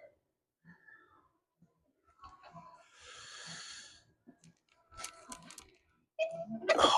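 Steel weight plates clinking and scraping as a 10-pound plate is loaded onto a plate-loaded preacher curl machine, with a louder cluster of metal clanks near the end.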